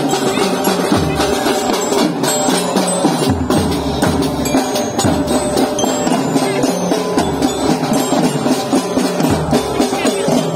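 Marching drum band playing: many small snare drums beating a fast, busy rhythm, with a large bass drum thudding underneath every couple of seconds.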